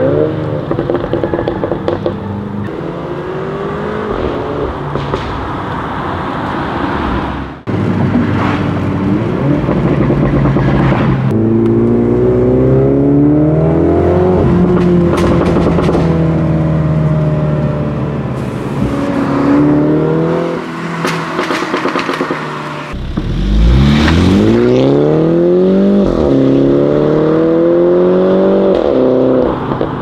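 Mini John Cooper Works F56's 2.0-litre turbocharged four-cylinder with the valved PRO exhaust, accelerating hard through the gears: the revs climb and drop with each shift. Sharp exhaust crackles and pops come on lifting off between pulls.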